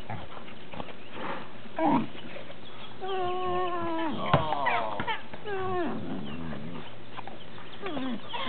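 A baby girl's high-pitched laughing squeals, several rising and falling, with a single sharp smack of the basketball a little after four seconds in.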